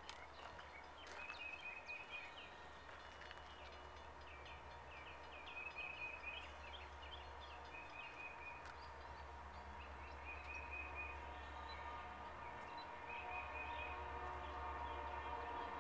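Small birds chirping in short repeated trills over a faint low rumble that slowly grows louder: a Union Pacific local freight, led by a pair of EMD GP-series diesel locomotives, approaching.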